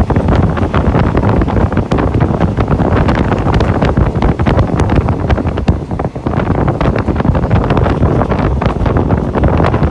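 Wind buffeting the microphone at an open window of a moving passenger train, over the train's running rumble.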